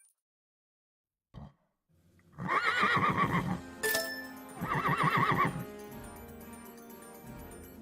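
Horse whinnying twice, each call about a second long with a quavering pitch, over background music, with a sharp click between the two calls.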